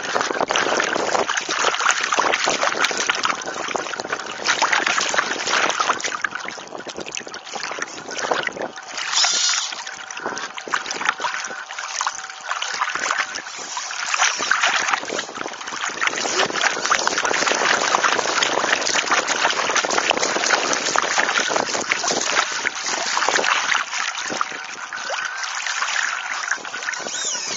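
Water rushing and splashing against the hull and hydrofoil of a radio-controlled Mini40 trimaran under way, heard close up from on board: a dense, crackling spray noise that swells and eases.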